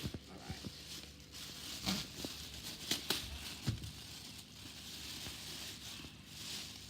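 Plastic fish-transport bag being handled and crinkled, with several sharp crackles in the first four seconds and a softer steady rustle after.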